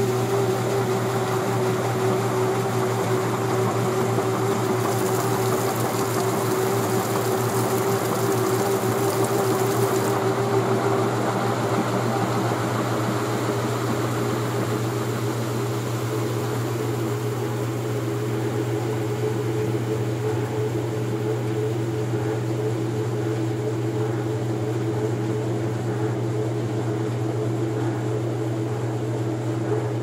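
Brastemp top-loading washing machine spinning its basket on the spin cycle: a steady motor and drive hum with a constant tone. A high hiss joins from about five to ten seconds in, and after it stops the hum settles a little lower.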